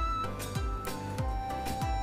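Background music with a steady beat of deep kick drums, about three a second, under held melody notes.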